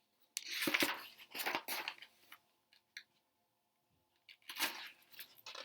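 Paper rustling as the pages of a picture book are handled and turned, in two bursts: a longer one at the start and a shorter one near the end.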